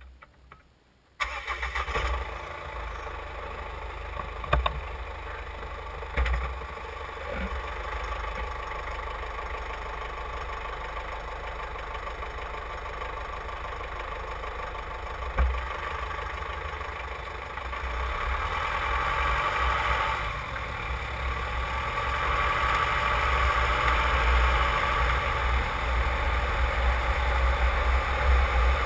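Jeep Cherokee KJ's four-cylinder common-rail diesel engine starting suddenly about a second in, heard from under the vehicle, then running steadily and growing louder in the second half as the rear drive shaft spins.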